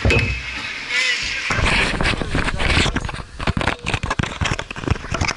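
Handling noise from a net-mounted action camera being grabbed and pulled off the hockey goal: a sharp knock at the start, then from about a second and a half in a rapid, irregular run of knocks, rubs and scrapes on the camera housing.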